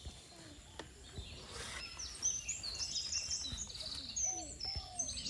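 Small birds chirping and calling over a steady background of outdoor noise. The chirps get busier from about two seconds in, and a few light knocks sound among them.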